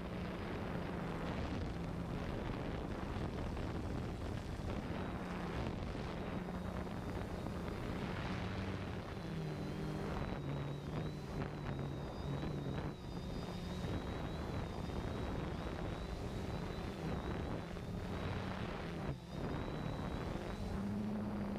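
3DR Solo quadcopter's motors and propellers humming steadily with wind rush. The hum's pitch drops and wavers in the middle as the motors change speed, over a thin high whine.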